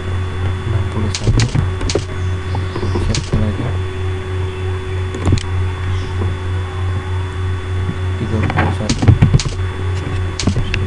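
Scattered computer keyboard keystrokes and mouse clicks, bunched in small clusters, over a steady low hum.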